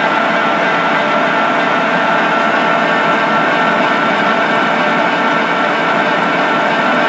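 Barber-Colman 16-16 gear hobber running under power through its automatic cycle, a steady mechanical running sound with a constant high tone as the feed screw turns.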